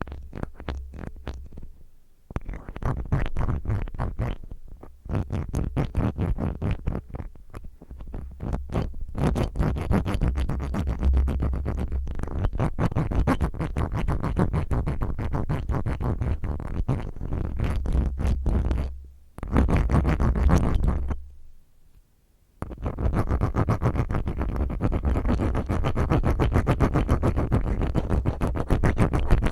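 A spiral ear cleaner rubbed and scraped roughly against a microphone's ear: dense, fast scratching with a low rumble from the contact, broken by a few short pauses.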